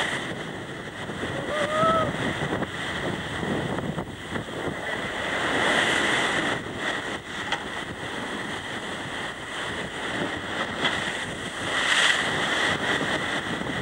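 Ocean surf washing and breaking against the rocks, rising and falling in swells, with wind buffeting the microphone.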